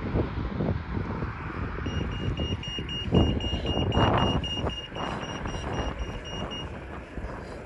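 Pedestrian crossing's audible signal beeping rapidly at about five short high beeps a second, the signal that it is safe to cross. The beeping starts about two seconds in and stops shortly before the end, over a low rumble of wind on the microphone.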